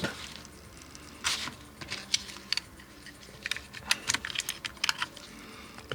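Irregular light clicks and taps, a dozen or so spread unevenly over a few seconds, as small hard objects are handled.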